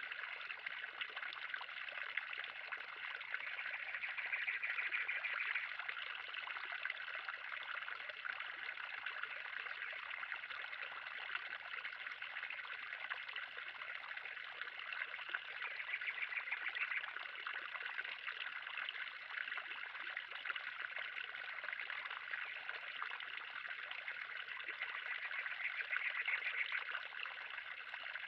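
Water trickling and splashing steadily in a pond, swelling slightly louder a couple of times.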